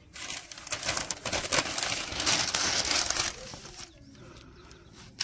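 Newspaper rustling and crinkling as hands unfold the sheets and spread them flat. It is loud for the first three seconds or so, then drops to faint handling.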